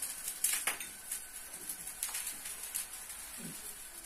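Thin flatbread batter sizzling in a hot frying pan, with a faint hiss and small irregular crackles.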